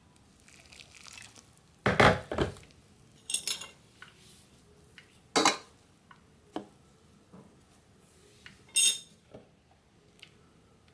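Kitchen clatter of a pot and utensils: a loud clatter about two seconds in, then a few separate clinks and knocks, the last one near the end.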